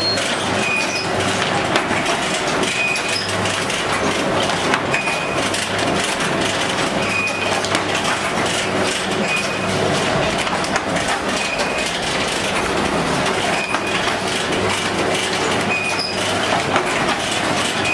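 Automatic dona pattal (paper plate and bowl) making machine running: a steady, loud mechanical clatter, with a short high tone recurring about every two seconds as the machine cycles.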